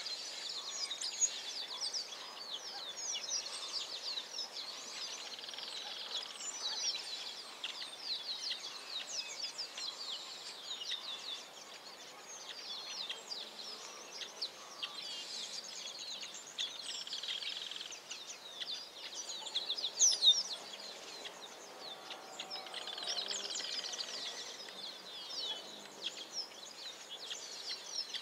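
Many small birds chirping together in a dense, continuous chorus of short, quick falling notes, with one brief louder burst about twenty seconds in.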